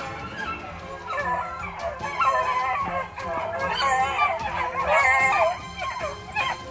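A pack of beagles baying: several overlapping howling voices that build and are loudest a little past the middle, then break into separate yelps near the end. It is the cry of hounds running a snowshoe hare's track.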